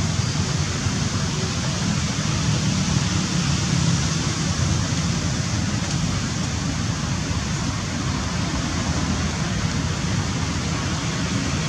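A steady rushing noise with a low rumble underneath, with no distinct events standing out.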